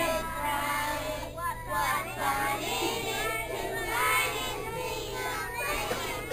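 A group of young preschool children singing together, many voices in loose unison with wavering pitch.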